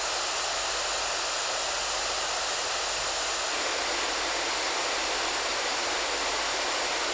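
Pink noise test signal played through JBL 2446 compression drivers on 2380A horns: a steady hiss with little bass, its tone shifting slightly about three and a half seconds in.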